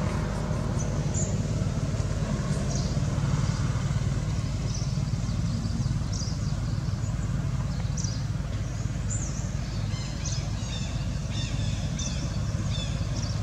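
A steady low hum, like a motor running, with a quick series of short, high chirps from small birds starting about ten seconds in.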